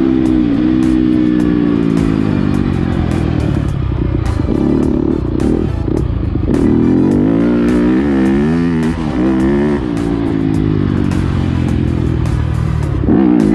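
Dirt bike engine heard from on the bike, its pitch rising and falling again and again as the rider works the throttle down the straight and through the turns.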